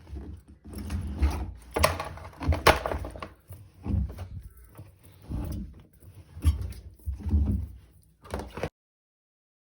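Household handling noise: a string of knocks and thuds, one about every second, like things being set down and cupboard doors being moved, cutting off abruptly near the end.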